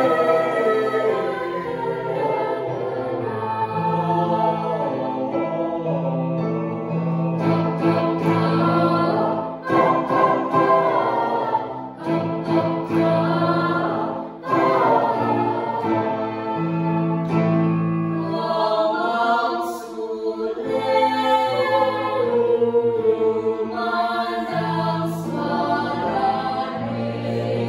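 Mixed high-school choir singing in harmony, the upper voices moving over long, held low bass notes.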